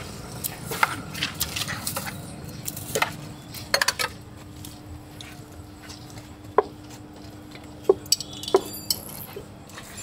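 Steel spoon clinking and scraping against small stainless-steel bowls and plates as masala chaat is scooped and mixed: irregular clinks, a quick cluster of them about four seconds in, and a brief metallic ringing near the end. A faint steady hum runs underneath.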